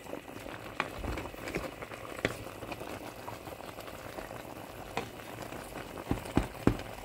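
Pot of meat boiling in seasoned water: steady bubbling, with a few sharp clicks scattered through it and several close together near the end.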